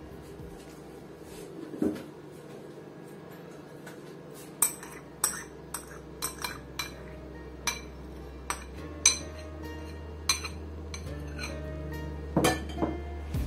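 Metal spoon scraping and clinking against a ceramic bowl and a glass mixing bowl: a string of sharp clinks, most of them in the second half.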